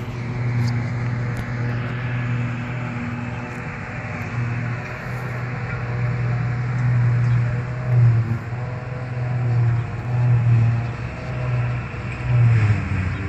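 Claas tractor and Claas Jaguar 870 forage harvester engines running as they drive along the field, a steady low drone that swells louder several times in the second half.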